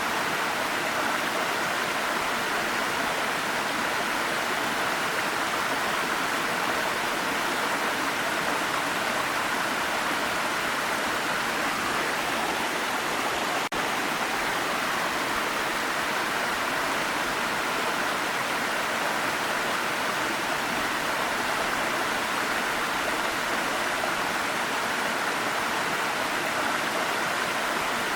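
Waterfall: a steady, even rush of falling water, with a split-second dip in level about halfway through.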